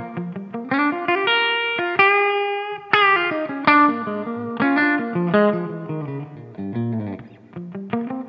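Paul Ray Classic Plus S electric guitar played through an amplifier on a clean tone: a single-note lead phrase that slides up into held high notes about a second in, then moves on as a picked melody.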